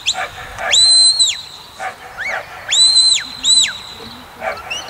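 A handler's whistle commands to a Border Collie herding sheep: a long, level whistle about a second in, a short up-and-down chirp, then another long whistle and a shorter one around three seconds in, each note sliding up at its start and down at its end.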